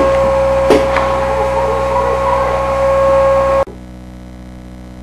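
Vacuum cleaner running with a steady high whine over a rushing noise, then cutting off abruptly about three and a half seconds in.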